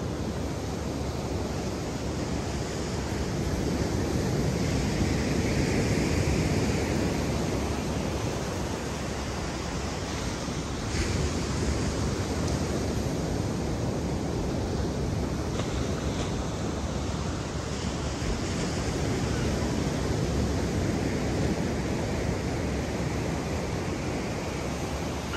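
Ocean surf washing onto a beach, mixed with wind on the microphone; the rushing noise swells and eases slowly every several seconds.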